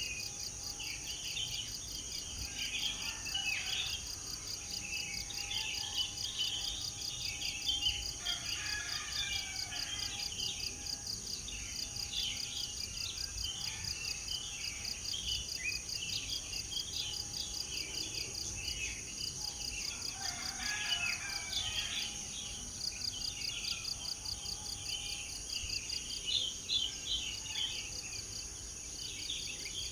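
Many birds chirping and twittering together in a morning chorus, over a steady high insect drone with a fast pulsing trill.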